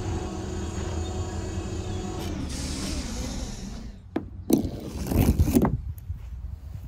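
A steady electronic hum with held tones and a hissing shimmer that swells and then stops about four seconds in. It is followed by a few loud scrapes and knocks of things being handled on sand.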